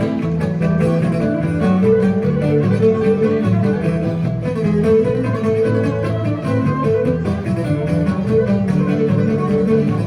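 String music: a bowed melody over a plucked, strummed accompaniment, playing steadily.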